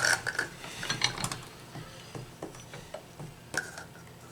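Sausage stuffer being worked to fill a pasta shell: irregular mechanical clicks and knocks, with a sharper click just as it starts and another about three and a half seconds in.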